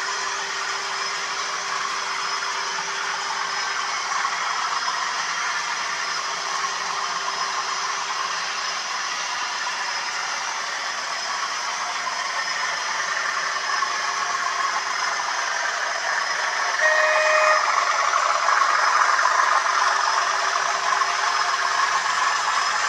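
OO gauge model trains running on the track: a steady whirring rattle of locomotive motors and wheels on rail, growing louder in the later part as a train passes close. About seventeen seconds in, a locomotive's sound decoder gives a short horn blast.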